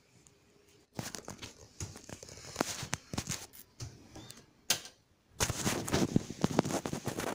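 Close, irregular rustling of bedding with many small crackles and knocks, starting about a second in, pausing briefly, then a longer, denser stretch of rustling near the end.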